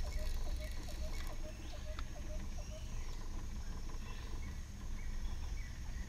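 Wild animal calls: a rapid series of short, rising notes, about four a second, stops about three seconds in. A slower series of higher calls repeats throughout, over a low steady rumble.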